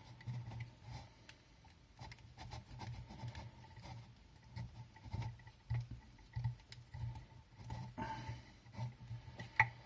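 Light clicks, taps and scraping of small fan parts being handled and fitted together by hand during the fan's reassembly.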